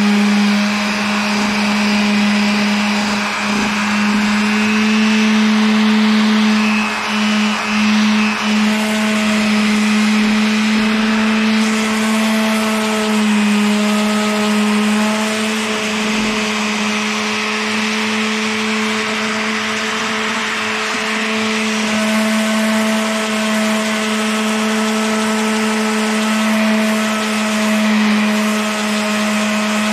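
Corded random-orbit sander running with a steady, loud hum as it sands a metal belt-grinder platen. The hum dips briefly a few times about seven to eight seconds in.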